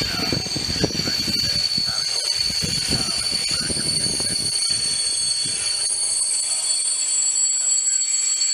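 Diesel railcar pulling into the platform and braking: a steady high-pitched squeal from its braking wheels over the rumble of the wheels on the rails, the rumble dying down over the second half as it slows.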